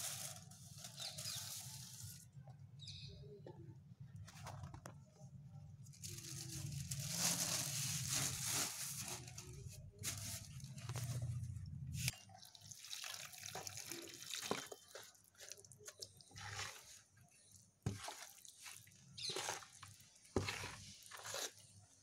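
Water splashing into a plastic tub of black cement powder, then the wet cement being stirred and scraped with a stick in irregular strokes. A steady low hum runs through the first half and cuts off suddenly about halfway.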